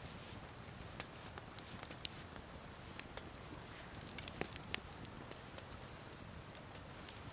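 Wood campfire crackling: faint, irregular sharp pops and snaps, with a small flurry of them about four seconds in.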